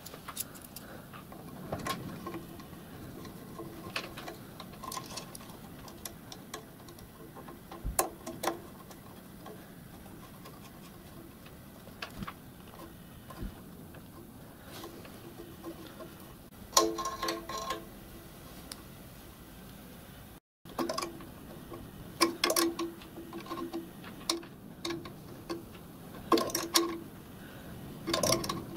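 Scattered metallic clicks and clinks of a small spanner and pipe union nuts as a copper pipe is fitted to a miniature steam locomotive's injector, some clinks ringing briefly.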